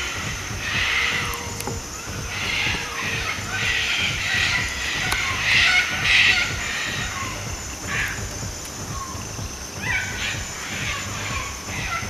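A flock of sulphur-crested cockatoos screeching: harsh, rasping calls from many birds, following one another every second or so.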